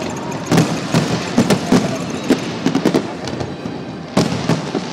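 Fireworks display: irregular bangs and crackles, several in quick succession over the first two and a half seconds and two more a little after four seconds, over a steady noisy rumble.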